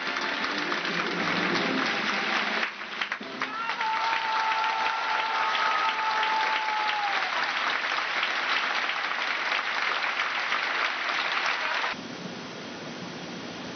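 Ballet orchestra music ends, and an audience applauds hard, with a long high call held over the clapping for a few seconds. Near the end the applause drops abruptly to a quieter level.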